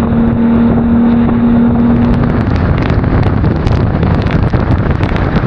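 A RIB's engine running under way, with wind buffeting the microphone. A steady engine hum fades out about two seconds in.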